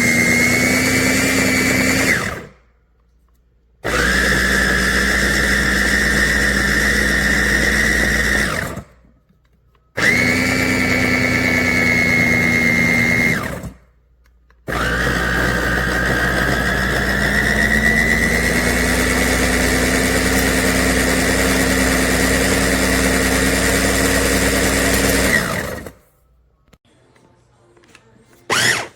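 GANIZA electric food chopper's motor and blades whirring in four runs, started and stopped by hand, the last one much longer; in that long run the pitch climbs slowly as the load on the blades eases. A couple of short pulses follow near the end.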